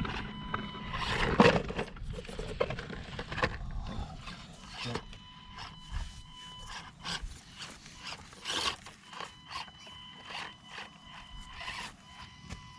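Micro RC crawlers (Axial SCX24) working over rough terrain: many small clicks and knocks of tyres and plastic against the ground. A thin, steady high whine from the electric drive comes and goes in stretches.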